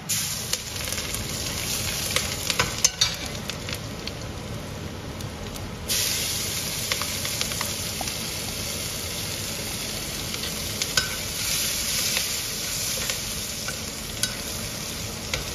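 Garlic slices, dried red chilli and chopped scallion sizzling in hot flaxseed oil in a wok, stirred with a metal spatula that clicks and scrapes against the pan. The sizzle jumps louder about six seconds in, when the scallions go into the oil. This is the aromatics being fried to temper jiangshui.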